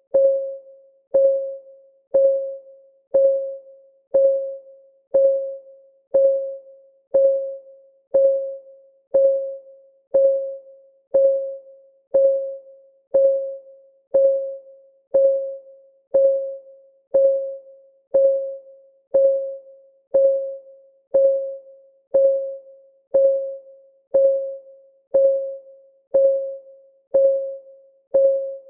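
Countdown timer's clock ticking sound: one tick every second, evenly spaced, each a short pitched tock that fades within about half a second.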